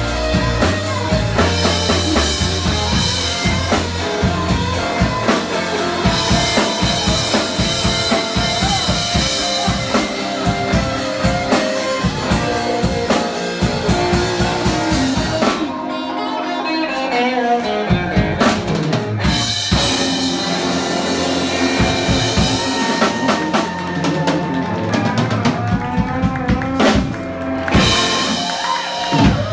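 Live band playing a song: drum kit, electric guitars and bass. The drums drop out for a few seconds about halfway, then the full band comes back in.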